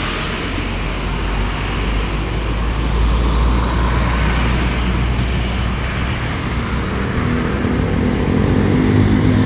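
Busy road traffic passing close: motor scooters, trucks and buses, with a steady low engine rumble throughout. Near the end a large vehicle's engine hum comes in, as a bus passes.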